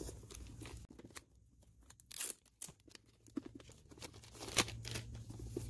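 Clear plastic shrink-wrap being torn and peeled off a DVD box: scattered crinkles and sharp tearing crackles with short pauses between them.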